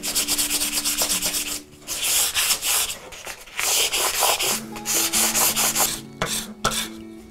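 Sandpaper rubbed by hand over a curved white oak candle holder in quick back-and-forth strokes, in four runs with short pauses between them. Near the end come two short, sharp scrapes as the wood is rubbed on a sheet of sandpaper laid flat.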